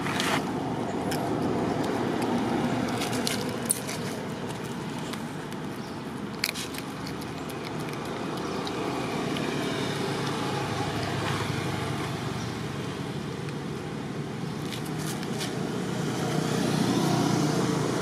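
Steady low outdoor background noise with a few sharp clicks and crackles scattered through it, the loudest a little under four seconds in.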